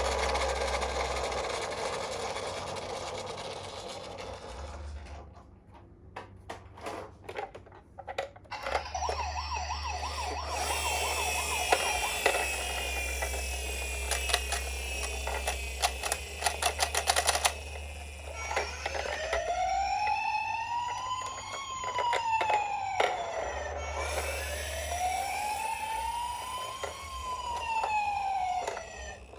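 Electronic sirens of toy ambulances sounding one after another. There is a run of clicks about six to eight seconds in, then a fast warbling siren. Near the end come two slow wailing sweeps, each rising and then falling over about five seconds.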